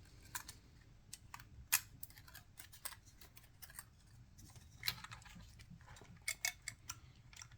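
Small scattered clicks and light metallic taps of a screwdriver and small parts handled against a DSLR camera body as it is unscrewed.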